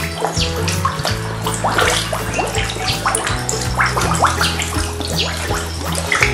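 A crowd of catfish splashing at the water surface as they feed, with a quick, irregular run of small splashes. Background music with low sustained notes plays underneath.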